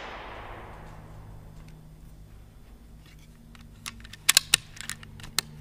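The echoing tail of an air-rifle shot dying away, then a quick run of about six sharp mechanical clicks near the end, the sound of the Air Venturi Avenger PCP rifle's side lever being cycled to load the next pellet.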